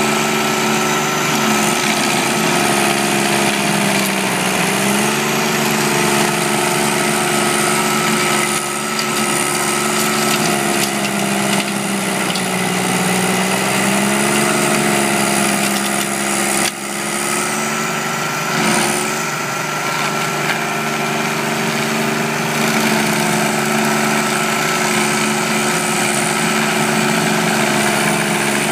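Carlton 7015 stump grinder running hard while its cutter wheel grinds into a large fir stump and throws wood chips. The engine note sags in pitch and recovers a few times as the wheel bites into the wood, with a brief dip in loudness about two-thirds of the way through.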